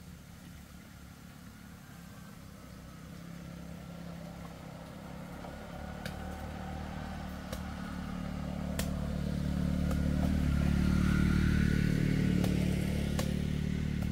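An engine running, growing steadily louder to its loudest about three-quarters of the way through, then easing slightly, with a few sharp clicks over it.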